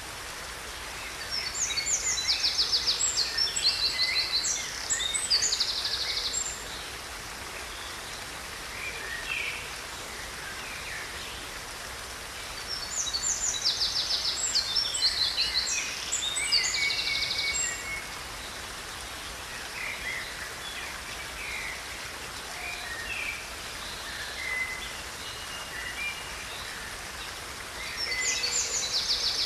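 Steady rushing of a waterfall, with songbirds singing over it in three spells of rapid trills and chirps: about a second in, around halfway, and near the end.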